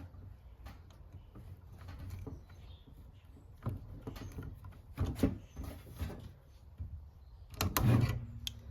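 A few light clicks and knocks from handling small plastic parts as retainer clips are pressed onto tubing fittings. The knocks come about four seconds in, again around five seconds, and loudest near the end.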